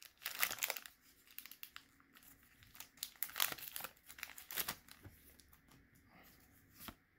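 Foil wrapper of a Pokémon trading card booster pack crinkling and tearing as it is pulled open by hand, in sharp crackles for about the first five seconds, then quieter.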